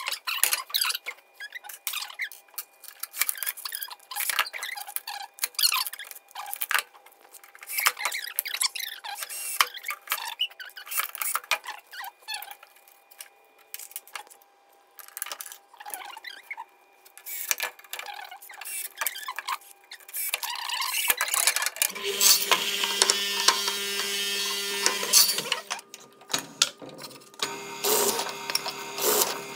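Rapid, irregular clicking and knocking of wooden pieces and tools being handled. In the last several seconds a drill press motor runs steadily while its bit bores into a pine board.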